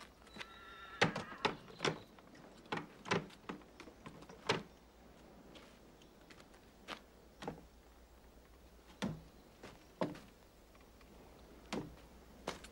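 Scattered sharp knocks and clacks from a horse-drawn carriage's door and fittings being handled, about a dozen at uneven intervals, coming thick in the first few seconds and then only now and then.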